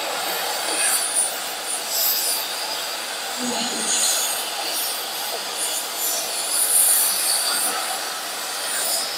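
Oxy-fuel cutting torch cutting through a steel gear ring, a steady high hiss that wavers as the jet of oxygen burns through the metal and throws sparks.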